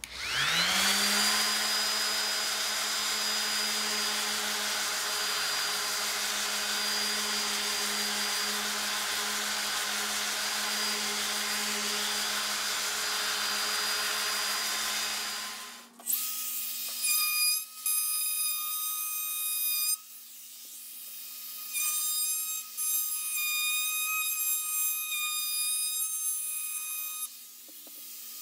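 Random orbital sander with an 80-grit disc spinning up and running steadily against a wood and epoxy-resin board, then switching off about sixteen seconds in. A higher, whistling sound made of several steady tones follows, cutting in and out.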